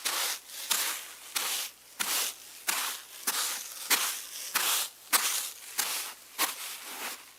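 Footsteps of bare feet in grass: a sound-effect track of soft brushing rustles at a steady walking pace, about three steps every two seconds.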